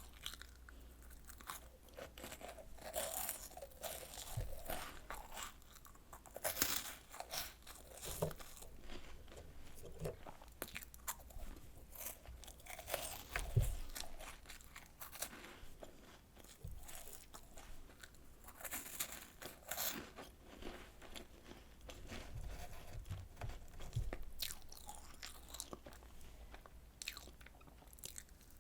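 Close-up crunching and chewing of crisp air-fried Home Run Ball puff snacks with a chocolate filling, in irregular crackly bites with denser bursts every few seconds.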